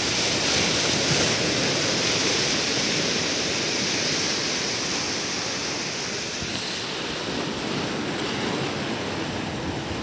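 Sea surf breaking and washing onto the shore: a steady rush of waves, a little duller from about seven seconds in.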